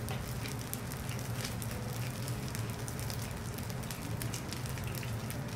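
Food sizzling and crackling on a hot teppanyaki griddle, a steady hiss full of small pops, over a steady low hum.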